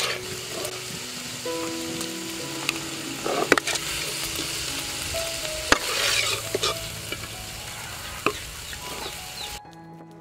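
Snake pieces and holy basil sizzling in a hot wok as a metal spatula stir-fries them, with a few sharp clanks of the spatula against the wok. The sizzling cuts off abruptly near the end.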